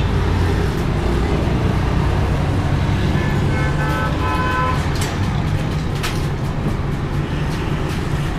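Street traffic running steadily, with a vehicle horn honking for about a second and a half midway. A couple of sharp knocks come just after it.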